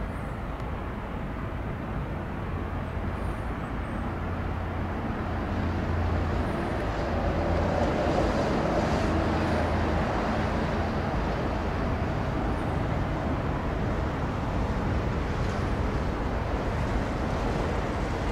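Jet airliner engines heard at a distance: a steady rumble and hiss with a faint whine, growing a little louder around the middle and then holding.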